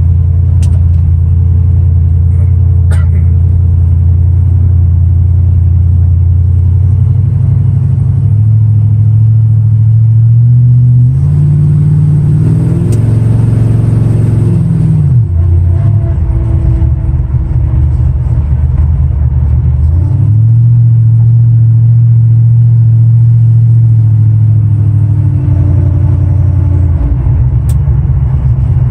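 Supercharged 5.3 LS V8 with an LS9 cam, in a truck under way. It runs with a deep, steady note, rises in revs through the middle, drops back around the halfway point, holds steady, then eases off again near the end.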